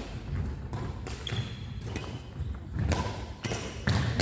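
Badminton play on a wooden indoor court: sharp knocks of rackets striking the shuttlecock, low thuds of footsteps, and a few short shoe squeaks on the floor. The loudest knock comes near the end.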